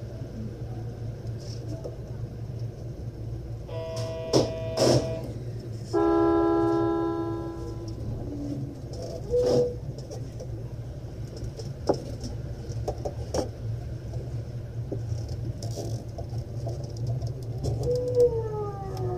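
Cab of a JR Keihin-Tohoku Line electric train at a station: a steady low hum, with two signal tones about four and six seconds in, the second louder and fading over about two seconds. Near the end the train pulls away, its motors' whine sliding down in pitch.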